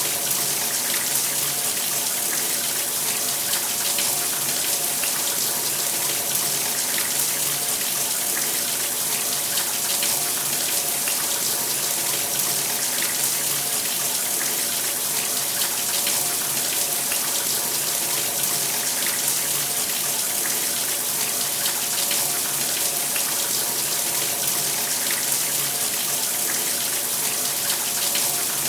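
Shower running steadily, water spraying and splashing down in an even hiss with faint scattered drips.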